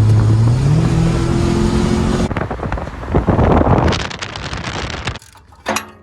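A car's engine and exhaust accelerating hard: the engine note climbs about a second in, then turns into a loud rushing noise that stops abruptly near the end.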